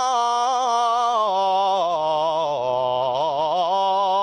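A man singing an unaccompanied Islamic devotional chant (inshad), drawing out one long melismatic vowel line with vibrato that sinks lower in the middle and climbs back near the end.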